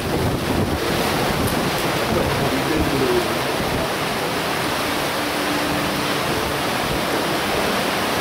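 Steady rushing of strong wind and rough sea waves, with wind buffeting the microphone.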